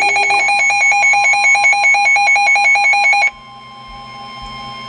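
Weather radios going off for a flash flood warning: a loud, rapid two-pitch pulsing alarm beep that cuts off suddenly about three seconds in, leaving a faint steady alert tone sounding.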